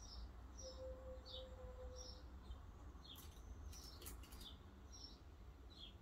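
A bird chirping faintly in the background, short high chirps repeated every half second or so. A few light clicks about three to four seconds in, as pins are taken from a magnetic pin holder.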